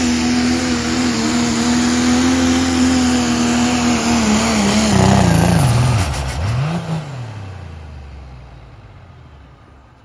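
Modified diesel pickup engine held at high, steady revs under full load while pulling a weight-transfer sled. About five seconds in, the revs fall away as the truck stops, with one brief rev back up. The sound then dies away.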